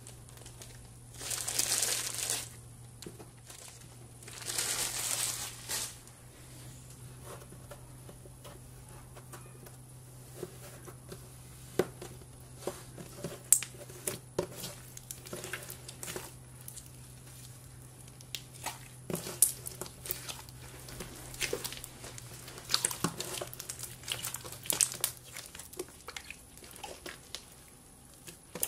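Hands squishing and mixing a chunk of red slime into clear slime: two longer stretches of crinkling near the start, then scattered sharp sticky clicks and pops as the slime is pressed and stretched.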